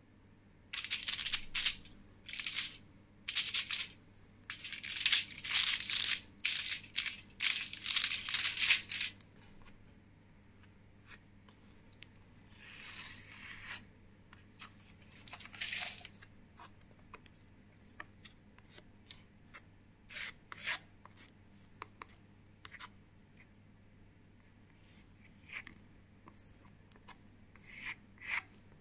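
Aluminium foil crinkling as it is handled and smoothed flat by hand, in loud crackling bursts for the first several seconds. After that come quieter scrapes and small taps of a plastic card spreading acrylic paint over a board, over a faint steady low hum.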